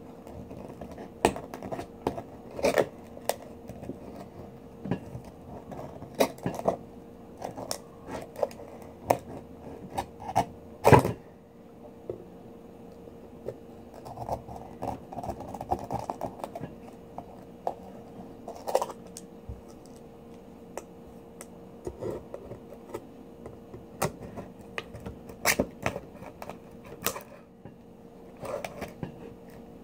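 Serrated knife blade scraping and clicking against a pearl oyster's shell as it is worked between the two halves to pry them open. Irregular sharp clicks and short scrapes, the loudest about eleven seconds in.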